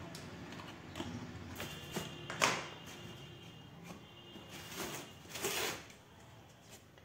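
Handling noises as a cardboard incubator box and a plastic tub are moved and set in place: a few knocks, the loudest about two and a half seconds in, and two short scraping rustles a little after the middle.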